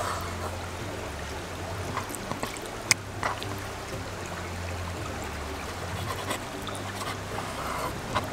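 Chef's knife trimming fat from raw chicken thighs on a wooden cutting board, with a few light sharp taps of the blade against the board, over a steady rushing background noise and a low hum.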